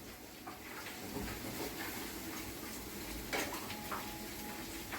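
Chicken wings being tossed in a hot pan of melted butter and barbecue sauce: a faint, steady sizzle with a couple of light knocks of pan and utensil about three seconds in.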